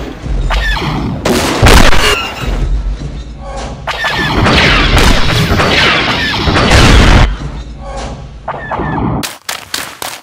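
Battle sound effects: repeated loud explosions with short falling blaster zaps over them. Near the end these give way to a rapid run of sharp shots, about four a second.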